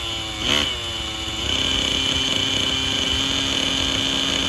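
OS 55 AG two-stroke glow engine with a Power Boost tuned pipe on a nitro RC helicopter: a quick throttle blip that rises and falls in pitch about half a second in, then the engine settles into a steady idle with a high whine over it. The idle is clean and is not loading up.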